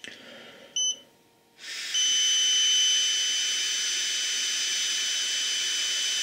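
Alcosense Zero breathalyser beeping twice, about a second apart. A person then blows steadily into it for about five seconds while it sounds one continuous tone at the same pitch as the beeps, as it takes a breath sample.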